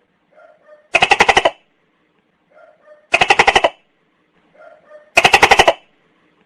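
Tokay gecko calling: three loud calls about two seconds apart, each a quick run of pulses lasting about half a second, with a faint short note or two just before each.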